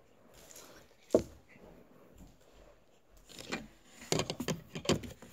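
Handling noises close to the microphone: a single sharp knock about a second in, then a quick flurry of clicks and crinkly rustling over the last two seconds.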